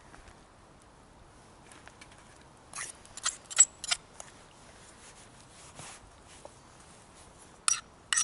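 A metal utensil clinking against a metal cooking pot or pan: four sharp, ringing clicks in quick succession about three seconds in, and two more near the end.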